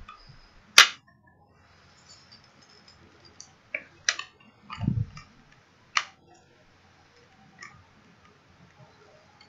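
Hard clicks and taps from a folding spoon being fitted onto the lid of an insulated soup thermos: one loud, sharp click about a second in, then a handful of lighter clicks, with a brief low sound near the middle.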